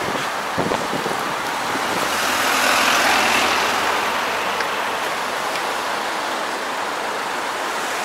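Road traffic noise: a steady hiss of tyres on the road that swells about three seconds in, then eases off.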